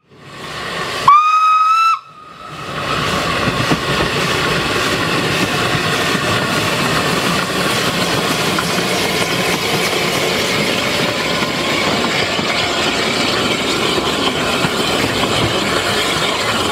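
Narrow-gauge steam locomotive gives one short whistle about a second in, rising slightly in pitch and cut off abruptly, followed by a steady hiss of steam and running noise as the train passes.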